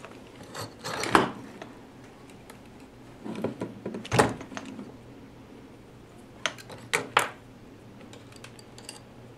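Workbench handling noises as wire and soldering tools are picked up and set down: a few sharp clicks and knocks in three clusters, about one, four and seven seconds in, over a faint steady low hum.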